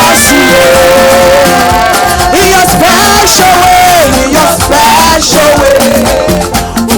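Live upbeat church praise music: a band with drums and percussion keeping a steady dance beat under a sung melody line.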